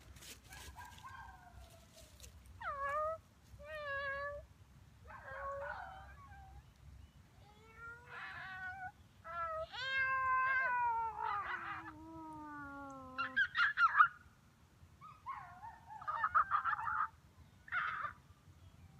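A string of meow-like calls, some short and some drawn out, several gliding down in pitch. One long call about ten seconds in falls steadily in pitch over about three seconds.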